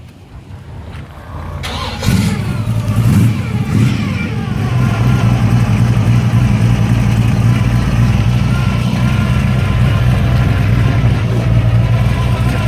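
Hot rod's 383 stroker V8 with dual four-barrel carburetors on a tunnel ram starting about two seconds in, revving briefly, then running at a steady idle.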